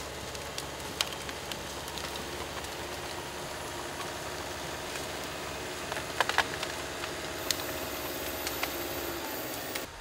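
Cat D4 forestry dozer's diesel engine running steadily as the machine crawls forward pushing branches and logs with its blade, with scattered sharp cracks and clicks of wood breaking and steel tracks, a cluster of them about six seconds in.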